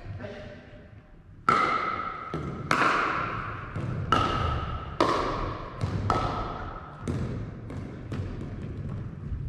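Pickleball paddles striking the hard plastic ball in a rally: sharp pops about once a second, starting about a second and a half in, each ringing on in the large hall. Lighter taps follow near the end.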